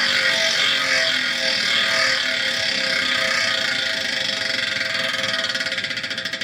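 Tactic Racing rear hub's freehub ratcheting as the wheel coasts, a fast buzz of clicks. Near the end it slows until the clicks come apart one by one.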